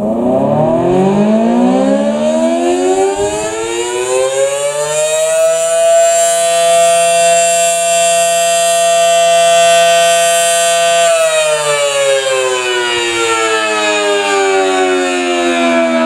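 Federal Signal Model 5T outdoor warning siren, its three-phase motor fed by a rotary phase converter, winding up in a rising wail, holding a steady full-speed tone for about five seconds, then winding down in a falling pitch from about eleven seconds in.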